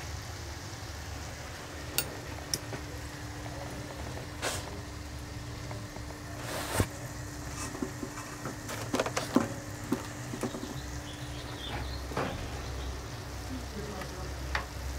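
Doughnuts deep-frying in a pan of hot oil: a steady sizzle with scattered pops and crackles. The oil is still bubbling around them, the sign that they are not yet cooked through.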